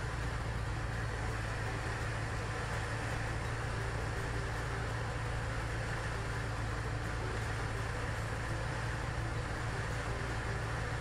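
CubCrafters Carbon Cub's piston engine and propeller running steadily, a constant drone heard from inside the cockpit during a descent on final approach.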